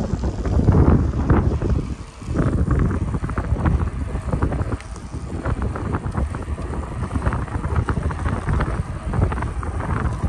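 Wind buffeting the microphone of a camera riding on a moving road bicycle, with tyre rumble on a concrete path and scattered short knocks and rattles.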